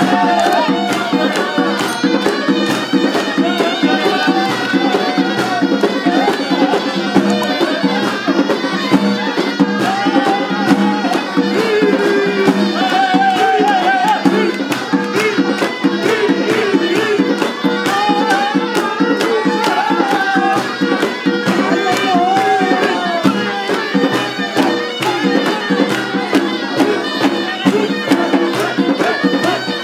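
Kabyle idebbalen band playing: two ghaitas, shrill double-reed pipes, carry a wavering, ornamented melody over a steady beat from a stick-beaten double-headed tbel drum and a bendir frame drum.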